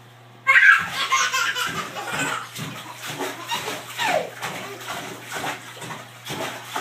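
A baby laughing in repeated belly laughs, with water splashing in a bathtub that comes in suddenly and loudly about half a second in.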